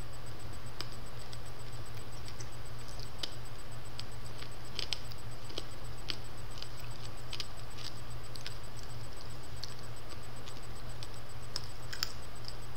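Faint, scattered, irregular mouth clicks and lip smacks from eating a hard-candy lollipop, over a steady low electrical hum from the microphone.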